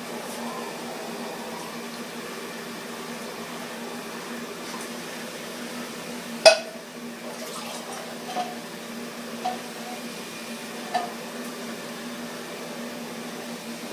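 Metal clanking as tins and utensils are handled: one sharp clank about halfway through, then three lighter clinks with a short ring. A steady low hum runs underneath.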